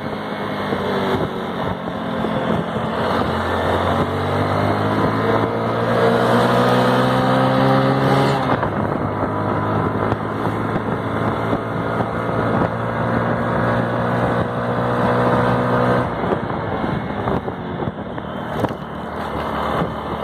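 Hero Glamour FI's 125 cc single-cylinder engine pulling under load on the move, its pitch climbing for the first eight seconds, dropping suddenly at a shift up, then holding steady. About sixteen seconds in the throttle eases off and the engine note falls as the bike slows.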